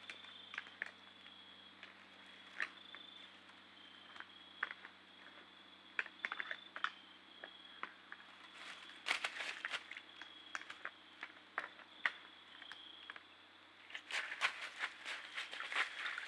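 Scattered sharp cracks, clicks and crunches of deer moving in dry leaf litter, thickest about nine seconds in and again near the end. Under them run a trail camera's steady low electronic hum and a thin high whine.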